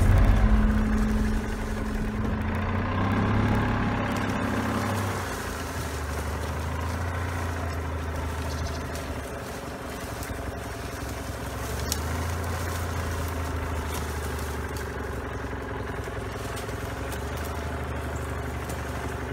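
Golf cart's engine running as it creeps along a rough wooded dirt trail, its low note stepping up and down a few times with the throttle.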